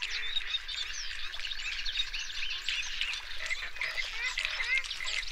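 A flock of flamingos calling: many short, overlapping goose-like honks and chatter.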